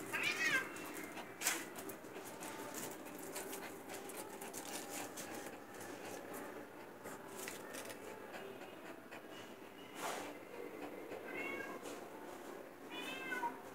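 Cat meowing: one call just after the start and two more near the end, each with a falling pitch. A few soft knocks from the scuffling cat and dog come in between.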